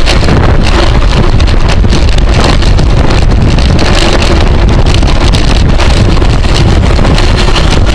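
Heavy, steady wind buffeting on the microphone of a camera riding along on a racing bicycle at speed.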